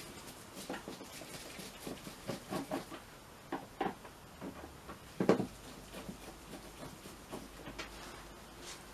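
Scattered light clicks and knocks of hand tools against a 50cc scooter's plastic body panels and fasteners as the bodywork screws are found and taken out, with one sharper knock about five seconds in.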